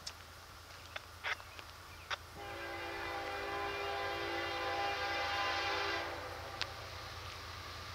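A Union Pacific locomotive's air horn sounding one long blast, a chord of several steady notes lasting about three and a half seconds, starting a little over two seconds in. A few short sharp clicks come before it.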